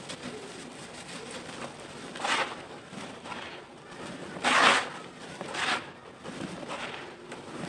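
Dry reused cement chunks crumbling as they are squeezed and crushed between bare hands, with a steady light crackle of powder falling. Three short, louder crunches, the loudest about halfway through.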